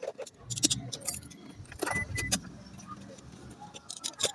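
Clicking and metallic jingling of handling and refitting the van's interior trim and parts after an alarm installation, a run of sharp rattles and knocks. Two brief high tones sound close together about two seconds in.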